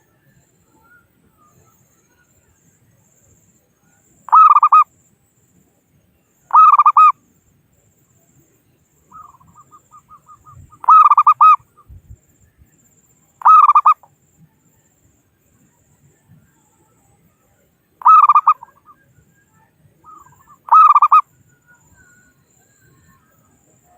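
Zebra dove (perkutut) cooing: six short rolling coo phrases in three pairs, with faint quick soft notes leading into some of them.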